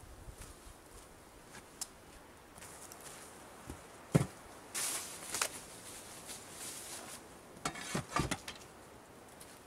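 Outdoor gear being handled: faint footsteps on dry leaves at first, then a single sharp knock about four seconds in as a wooden-handled shovel is stood against a log wall, a short rustle of jacket and backpack, and a cluster of knocks and rattles near the end as the backpack is set on the ground.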